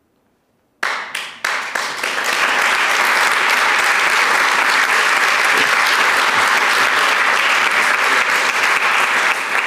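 Large audience applauding: near silence, then a few first claps about a second in, quickly building into steady, dense applause.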